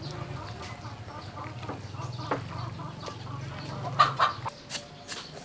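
Chickens clucking, with a low steady hum underneath that stops about four and a half seconds in.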